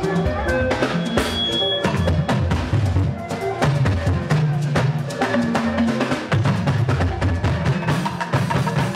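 Fuji music with dense, fast drums and percussion over a heavy bass drum beat.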